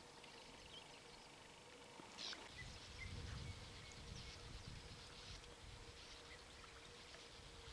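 Near silence: quiet outdoor ambience with faint, scattered bird chirps and a faint steady hum. A low rumble comes in about two and a half seconds in.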